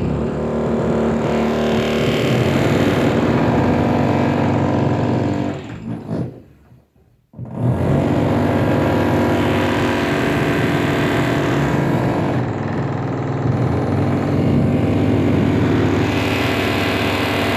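A construction power tool from renovation work running loudly and steadily, cutting out about six seconds in and starting up again a second and a half later.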